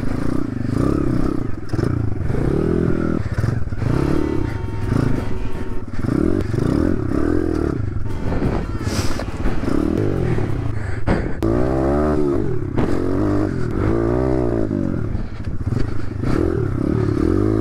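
Honda CRF110 dirt bike's small single-cylinder four-stroke engine revving up and falling back again and again as it is ridden along a rough, muddy trail, with some clatter from the bike.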